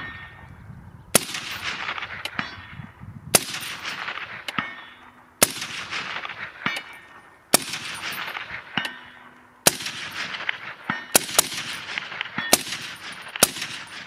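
Suppressed shots from a .308 Win rifle fitted with an ASE Utra Dual762 suppressor, the semi-automatic H&K MR308: about eight shots roughly two seconds apart, coming quicker near the end, each with a long fading tail and a fainter crack about a second later.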